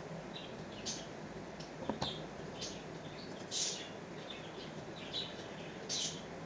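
Faint birds chirping, short high chirps every second or so over a low steady hiss, with a soft knock about two seconds in.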